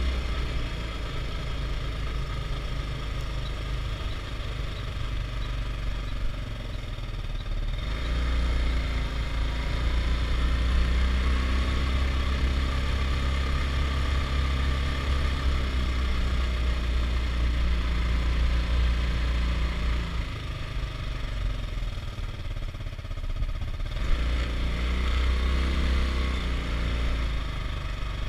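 Adly Hurricane 320 quad's engine running under way. It picks up about eight seconds in, eases off about twenty seconds in, and picks up again a few seconds later.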